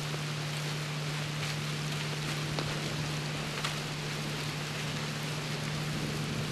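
Icy precipitation falling steadily on dry leaf litter: an even hiss with a few sharper ticks, over a steady low hum.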